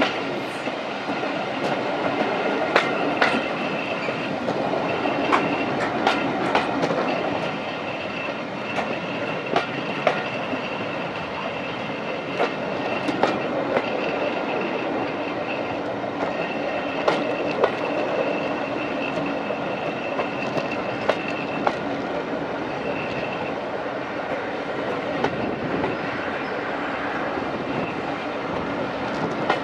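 Railway coach wheels running over the track, heard from the leading coach of a propelled train, with irregular sharp clicks over the rail joints. A thin high squeal from the wheels keeps coming and going.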